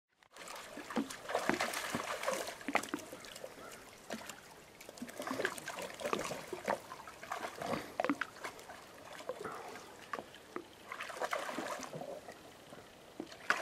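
Dogs wading in shallow lake water: irregular splashing and sloshing as they move their legs and muzzles through the water, busiest near the start and again near the end.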